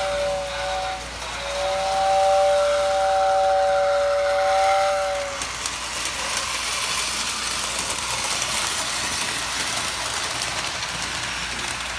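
Lionel postwar whistle tender's motor-driven whistle sounding two steady tones at once, like a steam whistle chord. It gives a short blast that ends about a second in, then after a brief break a longer blast of about four seconds. After that only the toy train's even running noise is heard.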